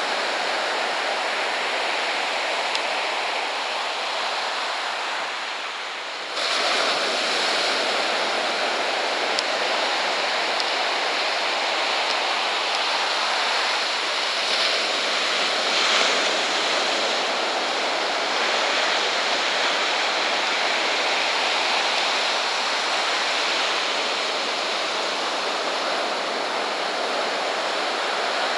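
Ocean surf breaking on the shore: a steady rush of waves. It dips slightly and then comes back up abruptly about six seconds in.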